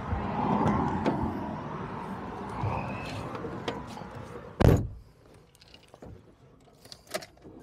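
Traffic noise from a car passing on the road, then the driver's door of a small van slammed shut about four and a half seconds in, the loudest sound here. After the slam it goes much quieter, with a few faint clicks from inside the van.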